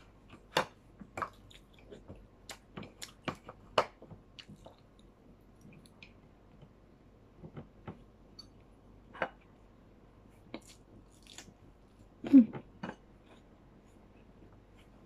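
A person eating by hand close to the microphone: scattered chewing and mouth clicks, with soft taps as fingers pick food from the plate. One louder short low sound about twelve seconds in.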